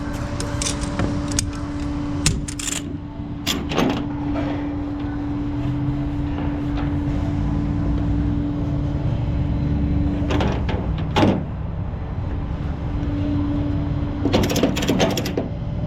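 Tow truck engine running with a steady hum, while metal strap hooks and ratchets clank and click in several short clusters as tie-down straps are worked.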